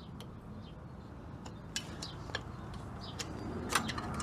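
A few light, scattered metal clicks and taps as small parts of a locking front hub are handled and worked loose with hand tools, over a low steady hum.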